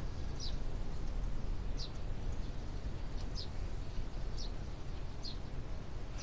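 A bird chirping: short high chirps about once a second, over a low steady background hum.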